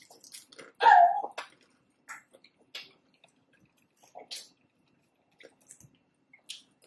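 Close-miked eating sounds: scattered wet mouth clicks and lip smacks from chewing taco salad, with one louder short vocal sound about a second in.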